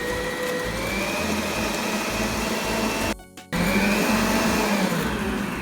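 Electric mixer running, its beaters creaming butter, sugar and eggs for cake batter. The motor whine climbs in pitch as it speeds up about a second in, breaks off briefly about three seconds in, then runs on and slows toward the end.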